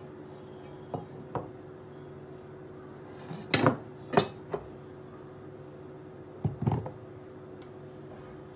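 Cubed butter tipped from a ceramic bowl into a dark pan: scattered clinks and knocks of bowl against pan, loudest in a cluster about three and a half seconds in and again around six and a half seconds, over a faint steady hum.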